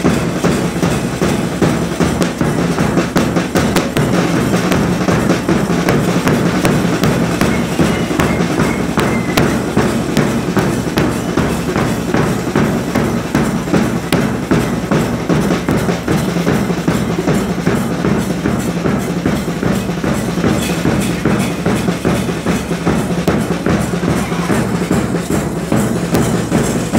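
Loud drum music: fast, dense drumbeats that keep going without a break.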